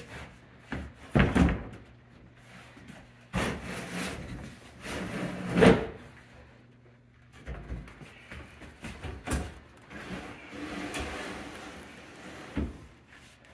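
Quartz countertop corner piece being set down and shifted into place on kitchen base cabinets: irregular knocks and bumps with scraping and rubbing as the slab is slid. The sharpest knocks come about a second in and near six seconds.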